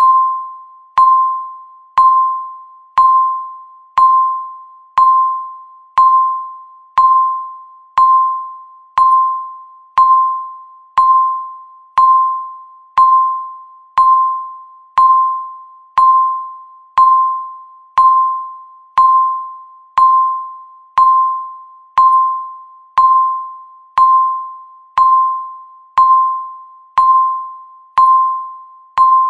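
Countdown timer tick: a short electronic beep-like tone struck once every second, each one fading quickly, in a steady even rhythm.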